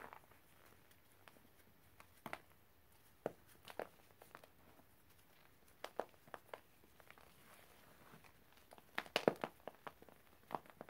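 Gloved hand squeezing and crushing dry chalky chunks in a pile of powder: scattered soft crunches and crumbles, with a quick run of several crunches about nine seconds in.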